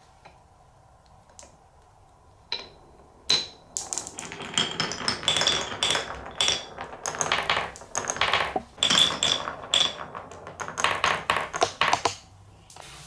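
Marbles rolling and clattering through the grooves, drops and tunnels of a Cuboro wooden block marble run. A few separate clicks come about two and a half seconds in, then a dense stream of clicks and knocks with short ringing ticks follows until it stops shortly before the end.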